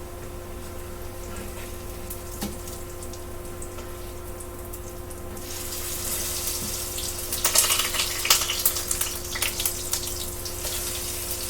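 Potato pancakes frying in hot oil: a low steady hum at first, then sizzling with crackles coming in about halfway through, growing loudest soon after and carrying on to the end.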